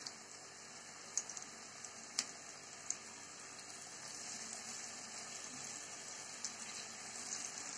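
Vegetable oil sizzling steadily in a frying pan around flour-coated zucchini strips, growing a little louder in the second half. A few sharp clicks come from the fork and spoon turning the strips against the pan.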